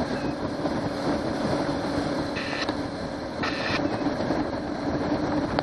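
Johnson 90 hp V4 two-stroke outboard motor running steadily at speed, a constant drone under way.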